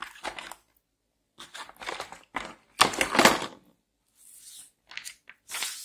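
Handling noise from a pneumatic nailer-stapler and its hard plastic carrying case: irregular rustles and knocks as a small cardboard box of staples is handled and the tool is lifted out of the case. The loudest clatter comes about three seconds in.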